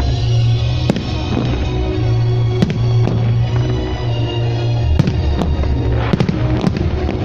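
Fireworks bursting over loud music with a heavy bass line: single sharp bangs about a second in, near the middle and around five seconds, then a quick cluster of crackling bangs near the end.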